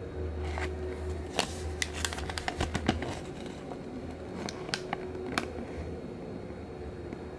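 Thin paper instruction leaflet crinkling and crackling as fingers unfold and turn it over: a quick run of sharp crackles over the first three seconds, then a few more about four to five seconds in, over a steady low hum.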